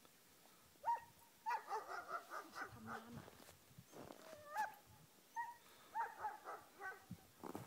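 German shepherd whining and yipping in short, high-pitched calls, in several bursts.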